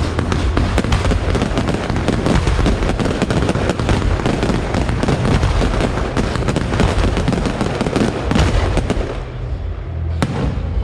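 Fireworks show: a dense, rapid barrage of crackles and pops over a low rumble, thinning out about nine seconds in, followed by a few sharp separate bangs near the end.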